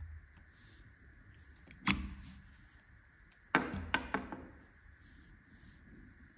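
Metal parts of a Timemore Chestnut C3 ESP Pro hand coffee grinder clicking and clinking as its crank handle is lifted off the drive shaft: one sharp click that rings briefly about two seconds in, then three quick clicks close together a second and a half later.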